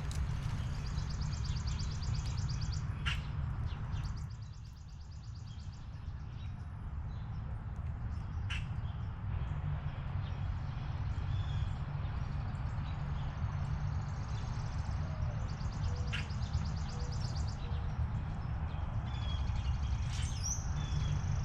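Small songbird singing a high, rapid, even trill about two seconds long, repeated several times, with a few short sharp chirps between. A steady low rumble runs underneath.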